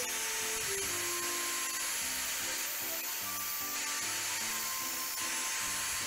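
Electric angle grinder with a thin cut-off disc running and cutting steadily into the rim of a metal camping-cup lid to make a notch, giving an even grinding hiss over a faint motor whine. Background music with a simple melody plays over it.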